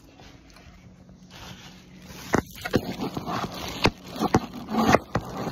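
Knife and fork scraping and clicking against a plate as a steak is cut, with a run of sharp clicks and short scrapes starting a couple of seconds in.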